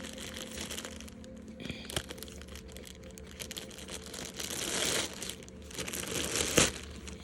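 Bags holding dolls crinkling and rustling as they are handled, with scattered crackles and a louder rustle around the middle.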